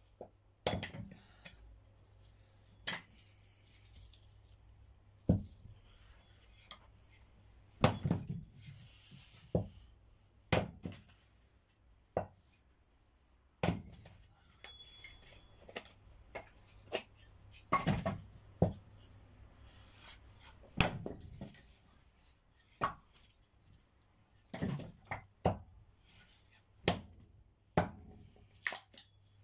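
Firewood being worked: sharp wooden knocks and thuds at irregular intervals, some much louder than others, as logs are struck or handled.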